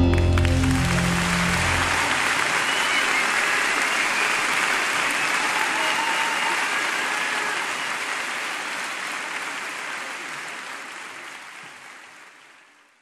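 Audience applauding as the song's final chord dies away in the first two seconds; the applause then fades out towards the end.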